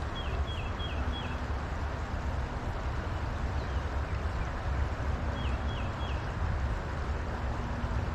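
Steady low rumbling outdoor noise. Over it a bird gives a quick run of four short falling chirps right at the start, then three more about halfway through.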